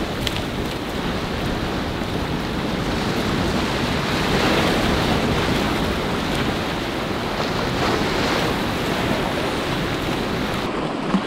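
Surf washing against the boulders of an ocean jetty, with wind rushing over the microphone; the wash swells loudest about four to five seconds in and again a little before the end.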